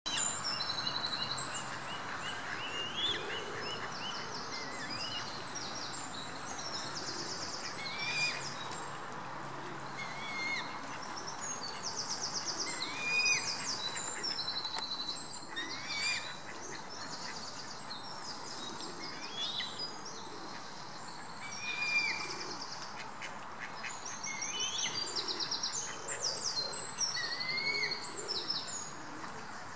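Mallard ducks quacking on a pond, amid a busy, continuous chorus of small birds' chirps and quick trills, over a steady background hiss.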